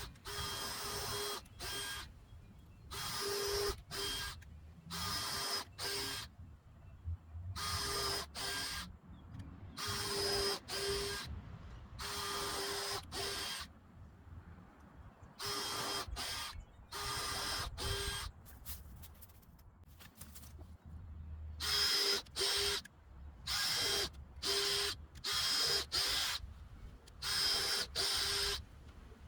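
Cordless drill running in repeated short bursts of a second or less, often a longer run followed by a brief one, with pauses between: pre-drilling and driving screws into wooden boards.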